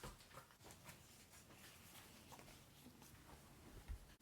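Near silence: quiet room tone with a few faint small clicks and one soft low thump near the end.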